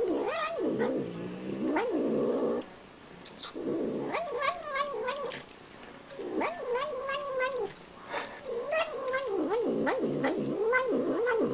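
A domestic cat yowling as it eats: four long, wavering calls with short pauses between them, over scattered small clicks.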